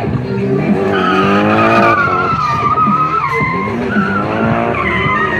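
Nissan 180SX drift car sliding sideways, its tyres squealing. The engine revs up and falls back twice as it is held in the drift.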